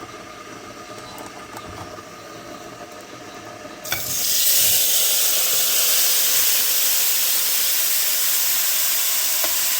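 Seasoned chicken pieces going into hot oil in a pot: a sudden loud sizzle starts just under four seconds in and carries on steadily. Before that there is only a quieter steady hum.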